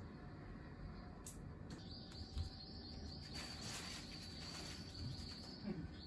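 Faint, steady, high-pitched insect trill that starts about two seconds in and holds, over a low background rumble.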